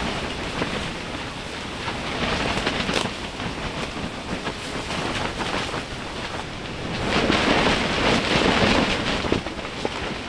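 Strong wind gusting, with heavy wind noise on the microphone; a louder gust swells about seven seconds in.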